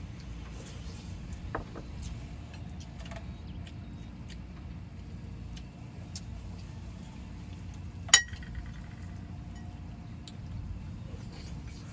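Small clicks of eating utensils and dishes during a meal, with one sharp clink about eight seconds in that rings briefly, over a steady low rumble.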